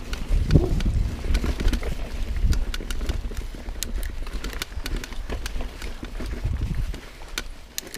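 Mountain bike rolling down a dirt singletrack: a low rumble from the tyres on the ground with many sharp clicks and rattles from the bike over bumps, the rumble easing off about seven seconds in.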